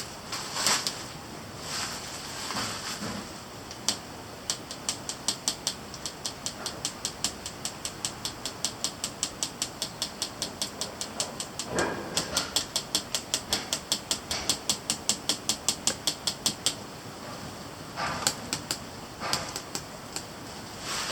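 Rapid, even ticking at about four to five strokes a second, lasting about twelve seconds, with a few scattered knocks and scrapes before and after it.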